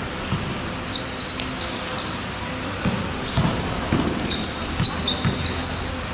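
Basketball bouncing on the court floor during play, a dull thump every half second to second at uneven spacing, with short high-pitched squeaks from basketball shoes on the court surface.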